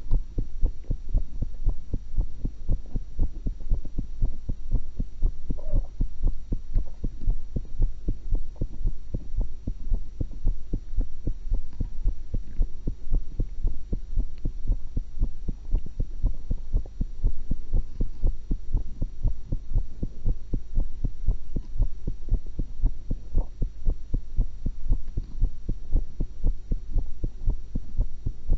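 Human heartbeat heard through a stethoscope chest piece: steady, regular low thumps over a constant low hum.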